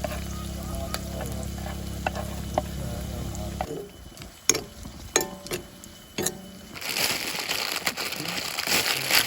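Onion and chilli frying in oil in a pan, sizzling, with a spoon knocking and scraping against the pan as they are stirred. A steady low hum runs under it and cuts off suddenly a little over a third of the way in, and the sizzling grows loud near the end.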